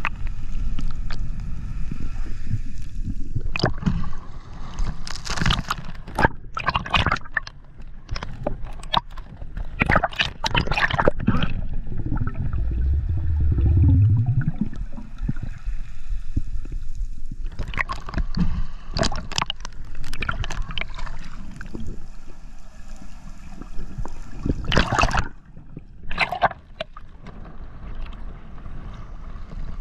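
Sea water sloshing and gurgling around a camera held at the ocean surface, with irregular splashes as it breaks in and out of the water.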